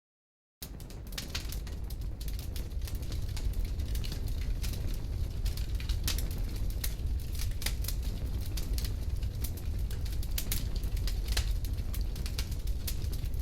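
Bonfire crackling: a steady low rumble of flames with many sharp pops and snaps. It starts after a brief silence and swells up over the first couple of seconds.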